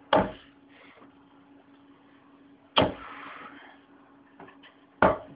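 Three darts thudding into a dartboard one after another, about two and a half seconds apart: a full three-dart throw.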